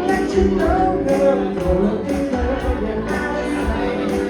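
A band playing an upbeat disco-funk song with a steady drum beat and a singer's voice over it.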